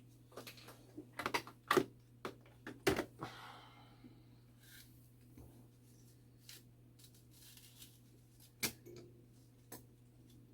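Sharp clicks and light knocks of small metal clock-movement parts and tools being handled and set down on a bench, several in quick succession at first, then two more near the end.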